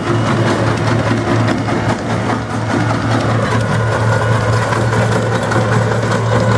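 Tractor engine running steadily with an even low hum while it pulls a nursery uprooter that tears old currant and gooseberry stumps out of the ground.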